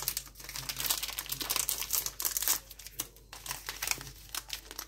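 Plastic instant-noodle packaging and seasoning sachets crinkling as they are handled, a run of irregular crackles.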